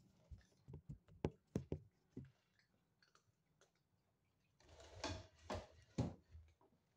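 Cats crunching dry kibble: faint, irregular clicks and crunches, thickening into a denser run about five seconds in.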